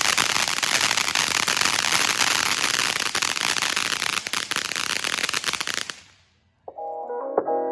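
Miracle Fireworks Proud Peacock firework fountain spraying sparks with a dense hiss and rapid crackling, dying away about six seconds in as the fountain burns out.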